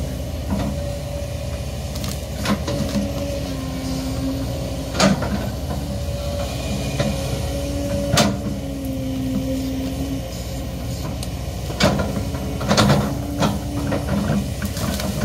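Kobelco SK200-10 excavator's diesel engine running under load, with a pitched hydraulic whine that comes and goes as the bucket digs around a eucalyptus stump. Sharp knocks sound about seven times, bunched near the end, as the bucket works the soil and roots.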